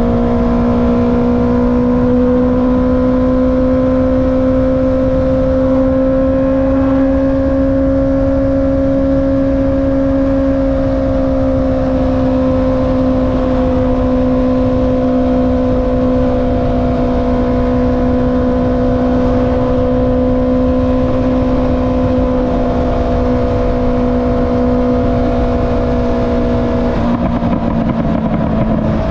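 Honda CB650R's inline-four engine running through an Akrapovic exhaust while riding at a steady throttle, its note rising a little and then easing back, with wind rush underneath. Near the end the note briefly breaks up and comes back slightly lower.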